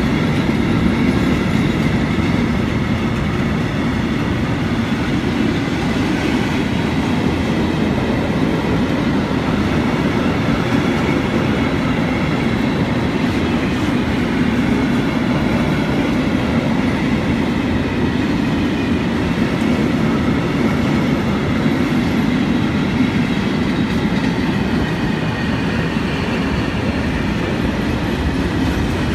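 Freight train of covered sliding-wall box wagons rolling past close by: a steady rumble of wheels on the rails, with a faint high whine held over it.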